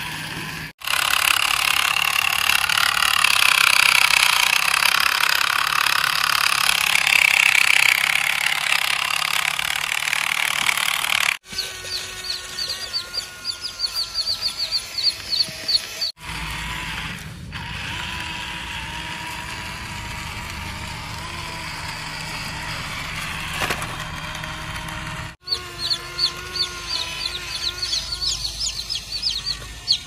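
A loud, even rushing noise for about the first ten seconds. After that, young chicks peep in quick strings of short, high chirps, broken off twice by cuts.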